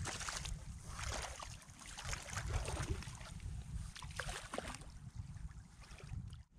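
Boots sloshing through shallow seawater, with scattered small splashes, over a steady low rumble of wind on the microphone.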